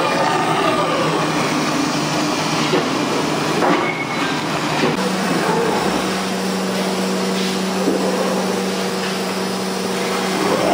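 A 5-axis CNC router's spindle running while its bit mills a white foam block: a dense hiss of cutting over steady motor tones, some rising and falling in pitch. About halfway through, a steady low hum sets in.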